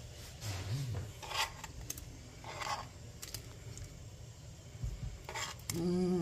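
A few short scrapes and light clatters of a dish tipped against the rim of a pot as rolled dumpling strips are slid into the strawberries.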